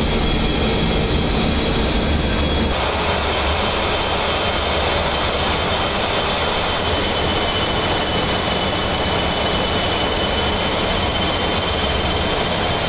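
Steady jet engine and airflow noise inside the cockpit of a KC-135 Stratotanker, with a thin high whine over it. The noise changes abruptly about three seconds in.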